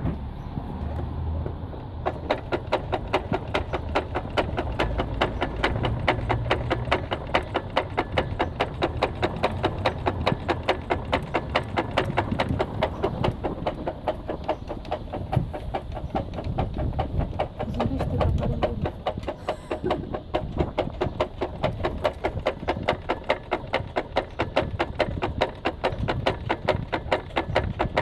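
Ford Mondeo running, with an even, repeating knock several times a second over a low hum.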